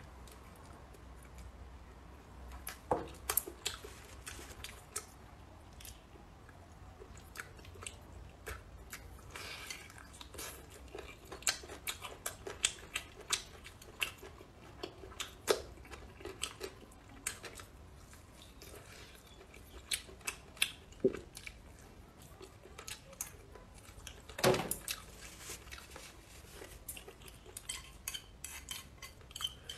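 A spoon and chopsticks clicking and scraping against a ceramic bowl of fried rice in irregular sharp clicks, with close-up chewing between them.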